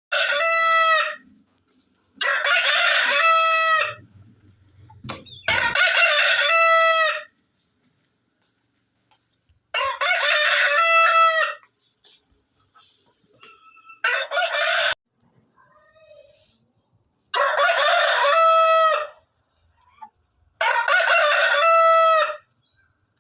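Roosters crowing over and over: about seven full cock-a-doodle-doo crows, each a second or two long, with short pauses between them.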